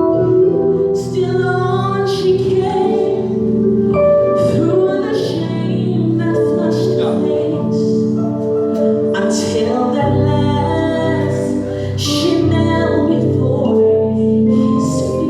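Music with singing: sustained held notes under a bending sung melody, at a steady level, with a fuller bass entering about ten seconds in.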